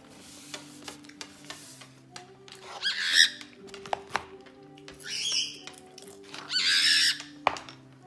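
Cockatiel screaming three times, loud harsh squawks in the middle and toward the end, the angry calls of a bird demanding food it is denied. Background music with steady low notes runs underneath.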